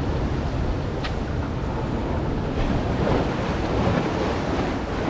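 Wind buffeting the microphone over the wash of waves on a rocky shoreline, with a short sharp tick about a second in.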